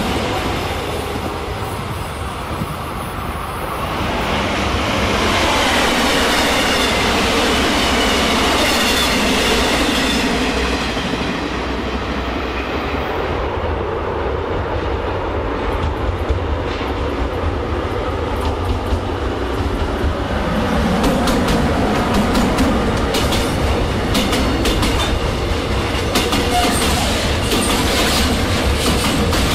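A train rolling past on the main line: a commuter train fades away in the first seconds, then a container freight train draws near and its flatcars roll by, wheels clacking quickly over the rail joints in the last seconds.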